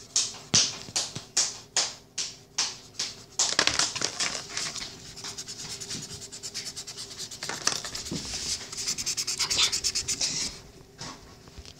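Felt-tip marker scratching across colouring-book paper as a pink bow is filled in: separate strokes about twice a second at first, then a quick back-and-forth scribble for most of the rest, fading near the end.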